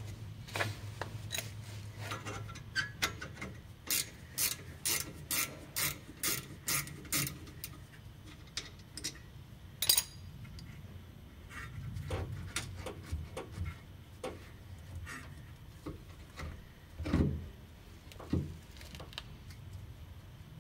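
Ratchet wrench clicking through a run of about eight even strokes, roughly two a second. It is followed by one sharper metallic click and a few low knocks near the end.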